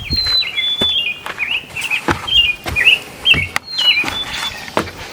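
Osprey calling: a rapid series of short, high whistled chirps, each dropping in pitch, with a few sharp clicks among them.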